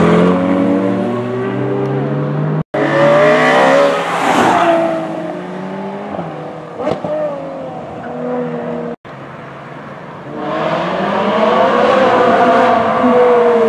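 Ferrari engines accelerating past in three short clips joined by abrupt cuts. First a blue Ferrari Portofino's V8 pulls away, then an engine revs hard as a car passes, and near the end another engine rises in pitch and grows louder as a black Ferrari 458 Spider approaches.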